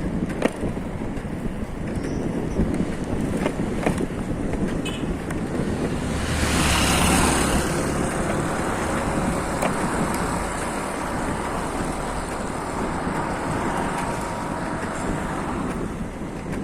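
Road travel noise: vehicle and traffic sound mixed with wind on the microphone, with a louder whoosh about six to eight seconds in.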